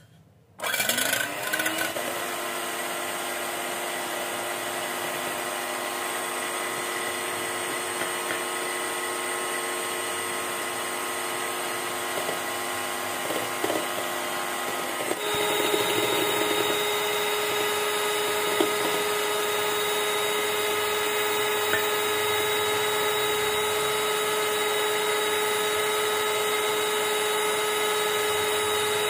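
Electric hand mixer starting up and beating egg whites in a steel bowl, a steady motor whine. About halfway through its pitch steps up and holds at the higher speed.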